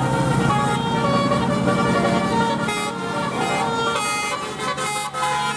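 Bus telolet horn, a multi-tone musical air horn, playing a tune: several steady notes sounding together and changing pitch in quick steps.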